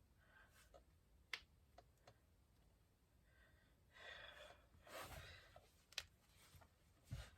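Finger knuckles cracking: a sharp single pop about a second in, two fainter clicks just after it, and another sharp pop near the end. A couple of soft breath-like sounds come in between.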